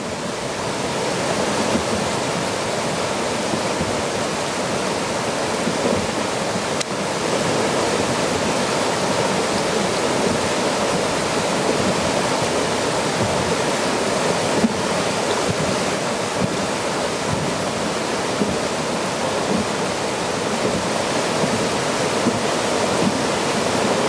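Karst spring welling up from underground into a shallow pool, its water gurgling and churning steadily.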